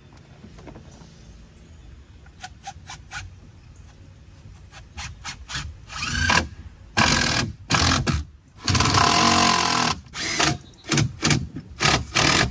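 Power drill driving screws in a series of short trigger bursts, with one longer run of about a second near the middle, after a run of light clicks a couple of seconds in.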